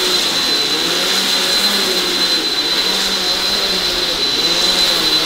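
Upright vacuum cleaner running as it is pushed over carpet, close to the microphone: a loud, steady rushing hiss with a high, thin motor whine over it.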